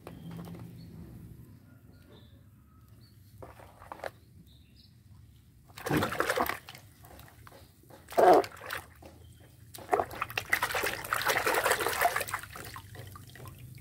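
A hand sloshing and splashing in a plastic basin of muddy, soapy water. A burst of splashing comes about six seconds in, a louder single splash about two seconds later, then steady splashing for a couple of seconds near the end.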